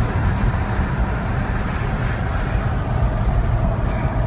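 Steady road and engine noise inside a moving Jaguar XF's cabin, a low rumble that holds even throughout.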